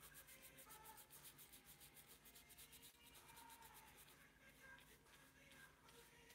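Faint, quick scratching of a wide bristle paintbrush rubbing paint onto a stretched canvas in rapid, even back-and-forth strokes that thin out about four seconds in.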